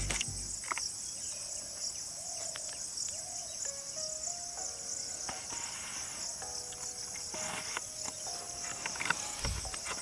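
Steady high-pitched chorus of insects with a fast pulsing buzz.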